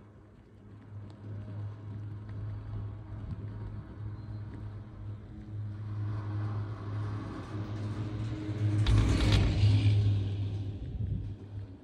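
Poma high-speed quad chairlift passing a tower: a steady low hum from the moving haul rope, with a rumbling clatter that builds and peaks about nine seconds in as the chair's grip rolls over the tower's sheave wheels, then fades.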